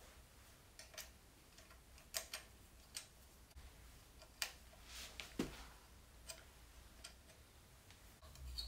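Faint, irregular clicks and taps as a three-button motorcycle handlebar switch housing is handled and fitted onto the handlebar. There are about a dozen sharp clicks, spaced unevenly.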